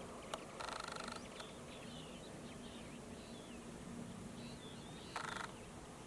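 Flock of finches (greenfinches, linnets and goldfinches) giving soft, high chirping calls, broken by two short harsh calls, one early and one near the end, over a faint steady low hum.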